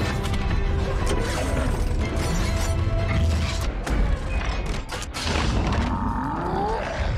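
Action-film soundtrack: music score mixed with crashes and a booming explosion about four seconds in, then mechanical transformation sound effects with rising whirring pitches near the end.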